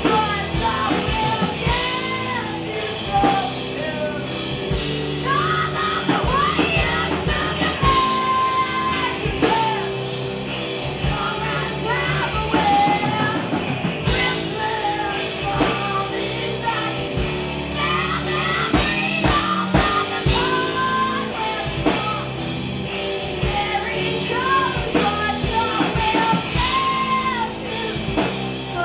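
Live rock band playing: a woman singing over electric guitar, electric bass and a drum kit.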